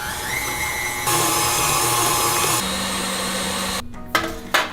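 Electric mixer whirring through cheesecake batter. It speeds up just after starting, runs louder for about a second and a half, then drops back and switches off. Two sharp knocks follow near the end.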